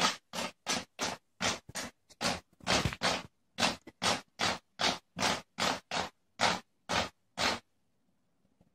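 Cat's claws scratching against a white beam, in quick repeated strokes about two a second that stop a little before the end.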